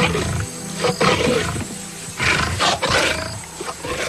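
Lion pair growling and snarling in several short, sharp bursts during courtship and mating, over background music.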